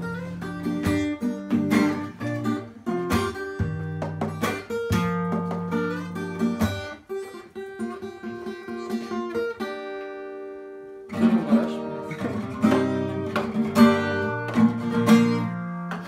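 Acoustic guitar played in strummed chords; about ten seconds in one chord is left to ring and fade, and the strumming picks up again a second later.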